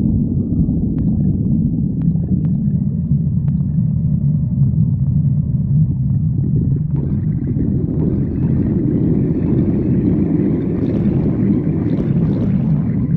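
A person's stomach growling: a long, unbroken low rumble that grows fuller and brighter from about seven seconds in.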